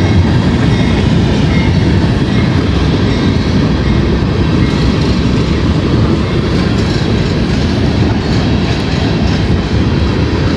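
CSX freight train's open-top hopper cars rolling steadily past over a street grade crossing: a continuous, even rumble of steel wheels on the rails.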